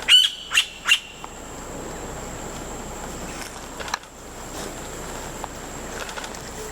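A bird gives three loud, sharp calls in quick succession about a second long in all, followed by the steady running noise of a moving boat.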